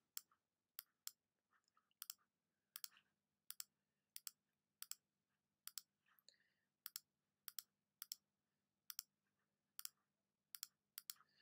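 Computer mouse clicked over and over, sharp short clicks that often come in quick pairs, irregularly about once or twice a second, while sampling areas with a selection tool.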